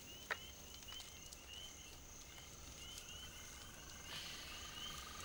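Night chorus of frogs and insects: a steady high insect drone, short rising chirps repeating about once or twice a second, and a trilling call. There is a light click just after the start.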